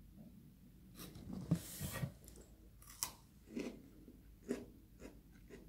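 A piece of freeze-dried peach being bitten and chewed with crisp crunches: a dense cluster of crunches about one to two seconds in, then single crunches every half second or so as the chewing goes on.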